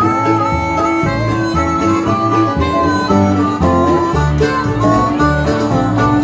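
An acoustic blues band plays live: harmonica holds and bends notes over strummed acoustic guitars and a walking upright bass line.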